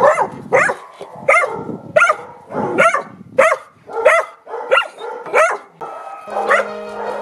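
Border collie pup barking repeatedly, about ten barks at a steady pace of roughly one every two-thirds of a second: fearful, defensive barking from a frightened puppy. Music comes in near the end.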